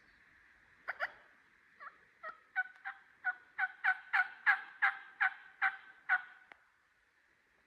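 Turkey yelping: a run of about fifteen short yelps that starts slowly about a second in, quickens and grows louder toward the middle, then tails off and stops.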